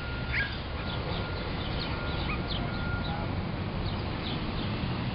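Small birds chirping in short, quick calls over a steady low rumble of city traffic. A faint steady high tone holds for the first three seconds or so.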